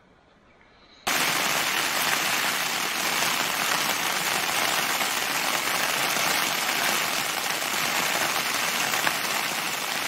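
Heavy rain falling steadily on a small backpacking tent, a dense, even patter that starts abruptly about a second in.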